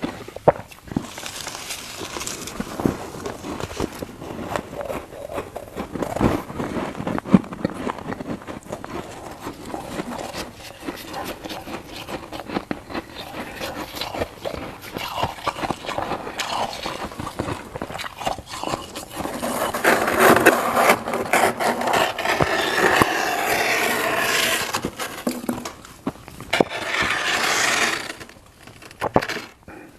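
Close-miked crunching and scraping of icy humidifier frost being bitten and eaten, a dense run of irregular crunches and crackles. The crunching grows louder and denser about two-thirds of the way through and again near the end.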